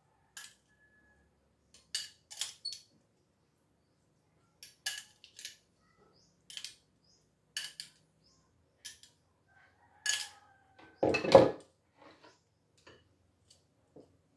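Metal tongs clinking against a small glass bowl, a dozen or so short irregular clinks with a faint ring, as food is picked out, and one louder knock about eleven seconds in.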